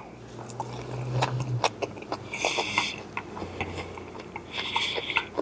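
A man chewing a forkful of roasted asparagus and mashed potatoes close to the microphone, with many small wet clicks and crunches from the mouth. A low steady hum sounds in the first second and a half.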